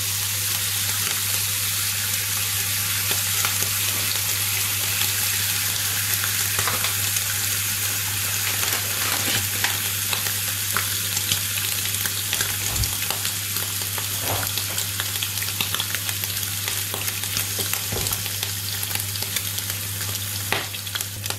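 Slices of ham frying in a nonstick pan: a steady sizzle with scattered small pops and crackles, over a steady low hum.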